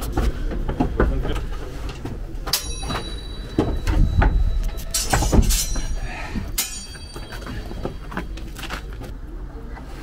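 Footsteps on wooden stairs and floorboards, with several sharp knocks and squeaky creaks of the wood, over a steady low rumble.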